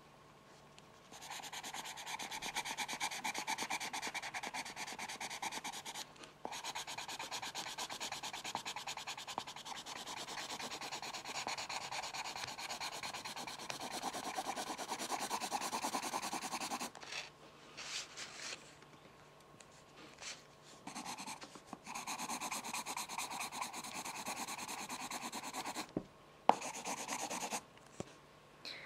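Pencil scratching rapidly back and forth on paper, in long unbroken stretches of several seconds with short pauses between.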